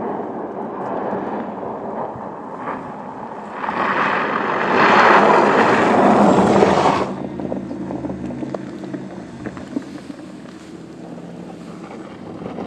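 Tyres of a Porsche Taycan Cross Turismo, an electric car, crunching over and spraying loose gravel at speed, loudest between about four and seven seconds in as the car slides past, then quieter as it drives away over rough dirt.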